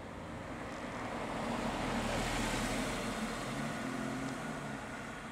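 Porsche 911's flat-six engine passing by at low speed, getting louder as the car approaches and fading as it drives off, with tyre noise on the tarmac.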